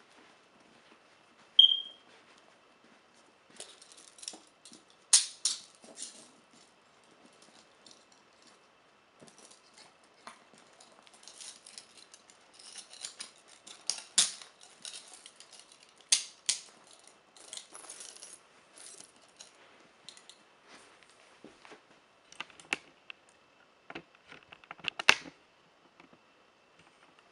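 Steel chains and metal cuffs clinking and rattling in irregular bursts as they are handled and moved about by hand, with a few sharper metallic clanks.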